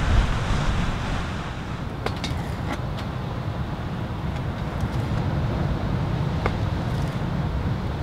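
Storm wind against the tent, a steady low rumbling noise, with a few sharp clicks of a knife blade striking a cutting board as beef is sliced.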